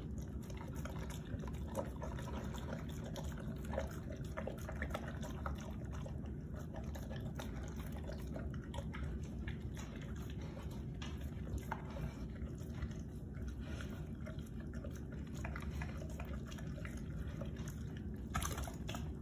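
A Cane Corso eating raw meat from a stainless steel bowl: wet chewing, smacking and slurping, with frequent small irregular clicks and crunches as it works through raw chicken backs and liver.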